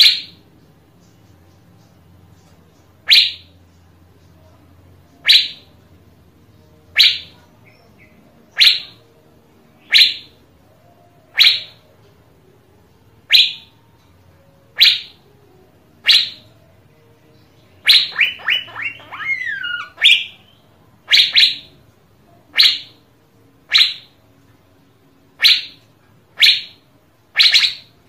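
Asian fairy-bluebird calling: a loud, sharp note that falls in pitch, repeated about every one and a half seconds. About two-thirds of the way through comes a quick run of rapid notes ending in a falling warble, after which the single notes resume.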